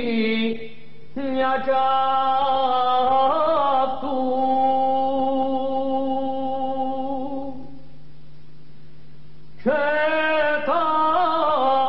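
Male voice singing a slow traditional Cypriot song in long, ornamented held notes, over a steady low drone. One long phrase ends about eight seconds in, and the next begins after a pause of about two seconds.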